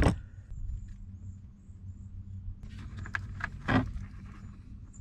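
A few light clicks and knocks from a hand wire stripper/crimper being worked on wires and heat-shrink butt connectors, the loudest about three-quarters of the way through, over a steady low hum.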